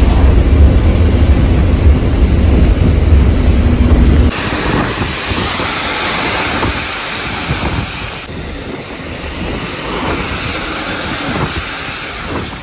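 Road noise inside a moving lorry on a wet highway: a heavy low engine and road rumble, which changes abruptly about four seconds in to a steady hiss of tyres on the wet road as other lorries pass close alongside, with wind on the microphone.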